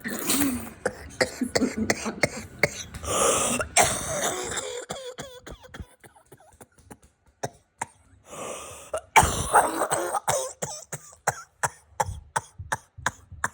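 A person coughing hard in several fits, with throat clearing. The fits come at the start, again around three to four seconds in, and most loudly about nine seconds in, after a quieter stretch.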